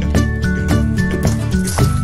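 Background music with a steady beat of about four strokes a second under held melody notes that step downward in pitch.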